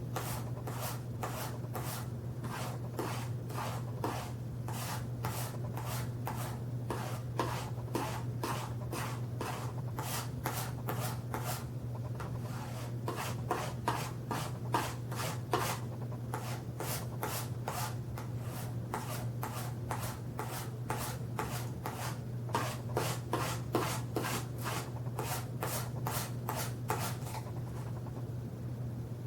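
Knife blade stroked again and again across a loaded cardboard strop, short rubbing strokes at about two to three a second that stop near the end, over a steady low electrical hum. This is the stropping stage that finishes the edge after the stones.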